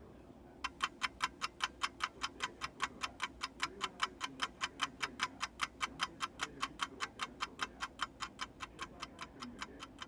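Poljot Cal.2612.1 mechanical alarm watch movement ticking, about five sharp ticks a second, which is the steady beat of the assembled, running balance and escapement. The ticks start about half a second in and slowly fade toward the end.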